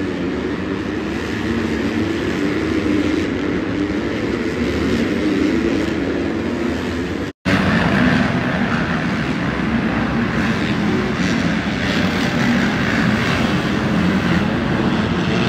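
Supercross dirt bike engines revving up and down on the track, with a brief break about seven seconds in where one stretch of running is cut to the next.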